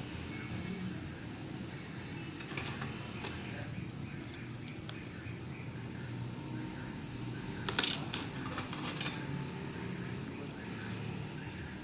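Light clicks and taps of small metal repair tools on a phone's circuit board as a wire is soldered to the charging port's VCC point, with one sharper click about eight seconds in, over a low steady hum.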